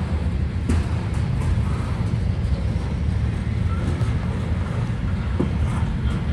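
Freight train rolling past: the steel wheels of container-carrying flatcars give a steady low rumble on the rails, with a few faint clicks.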